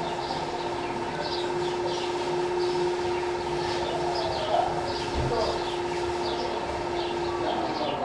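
House sparrows chirping, many short quick chirps one after another, over a steady droning tone that dies away near the end; a dull low thump about five seconds in.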